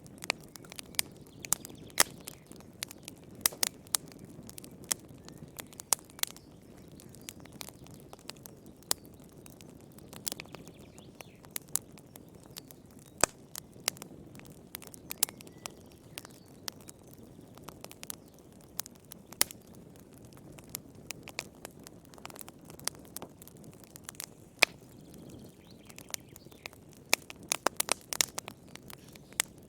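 Wood fire crackling in a fireplace: irregular sharp pops and snaps, several a second and sometimes in quick clusters, over a soft steady rush of burning.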